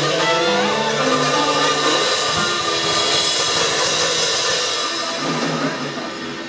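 Live band with saxophone and drum kit playing, held notes under a wash of ringing cymbals, trailing off near the end.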